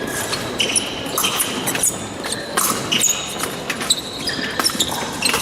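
Épée fencers' footwork on the piste: shoes squeaking and stamping in quick irregular bursts during the bout.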